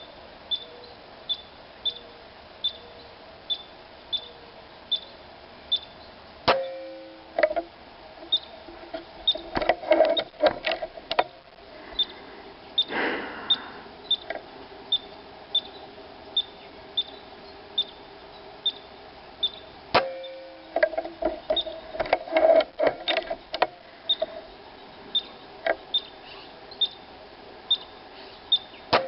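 Air Arms S510 PCP air rifle fired twice, about 13 seconds apart, each shot a sharp crack, with clicking and clatter from working the side-lever action in between. A short high chirp repeats about every 0.7 seconds throughout.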